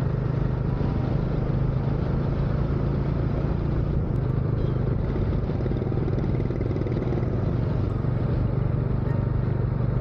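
Motorcycle engine running steadily under way, a constant low hum with road noise.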